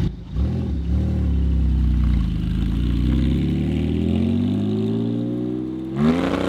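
Porsche 718 Cayman GT4's 4.0-litre flat-six launching from a standstill with traction control on. The revs rise and dip twice at the start, then climb steadily as the car pulls away, with a quick sharp rise near the end.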